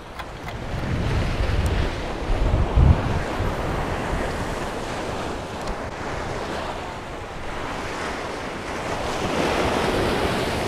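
Sea waves breaking and washing against the stone blocks of a jetty, a steady rushing surf. Wind buffets the microphone, heaviest in the first few seconds.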